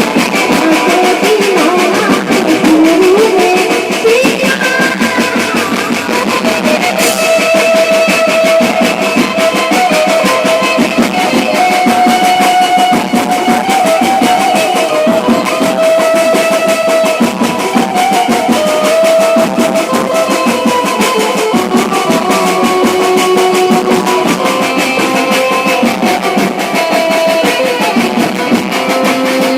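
Loud band music: drums keeping a steady beat under a held, wavering melody line on a lead instrument, with almost no bass.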